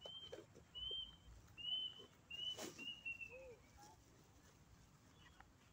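A bird calling faintly: five short, clear whistled notes about 0.7 s apart, the last one longer and falling slightly in pitch. A brief rustle comes near the middle.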